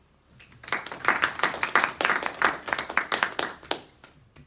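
Audience applauding, with a dense run of hand claps that starts about half a second in and dies away shortly before the end.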